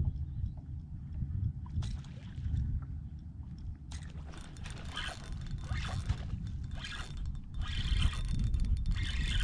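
Wind rumbling on the microphone, with water lapping and sloshing against the boat's hull that grows busier about four seconds in.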